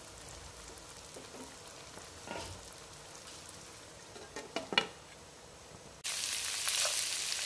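Mutton chops in a marinade sizzling faintly in a nonstick wok, with a few sharp knocks between about four and five seconds in as a glass lid is set on. About six seconds in it cuts sharply to a louder steady sizzle of the chops frying in oil.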